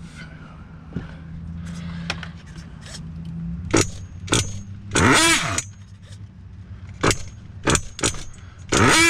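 Flooded nitro engine of a Kyosho Inferno GT2 RC car being cranked over, with a steady low hum and several sharp clicks. It fires briefly about five seconds in, rising and falling in pitch, then catches near the end and revs up.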